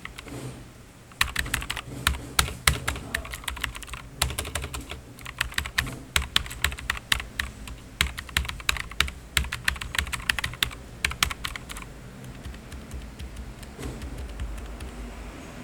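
Typing on a Rakk Kimat XT.LE mechanical keyboard with Outemu Blue clicky switches: a fast run of sharp key clicks that starts about a second in, pauses briefly near four seconds, and stops a few seconds before the end.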